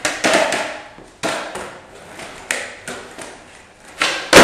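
Skateboard on a wooden plank floor: several sharp clacks and knocks of the deck and wheels hitting the boards, then a tre flip popped and the board slapping down hardest near the end.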